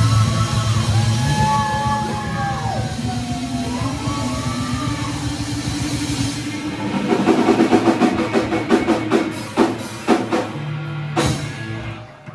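Live rock band finishing a song: long, bending electric-guitar notes over a low sustained chord, then a dense flurry of drum hits and cymbal crashes from about seven seconds in, closing on one final big hit near the end.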